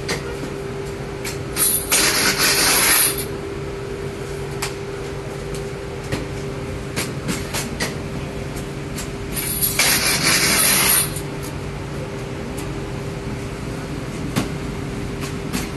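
Bakery machinery running with a steady hum and a constant tone, with scattered clicks and knocks of work. Twice, about two seconds in and again near ten seconds, a loud hiss lasts about a second.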